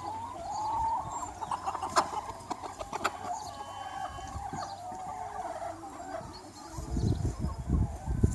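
Chickens clucking and calling in wavering, pitched notes, with two sharp clicks about two and three seconds in. Low thumps set in near the end.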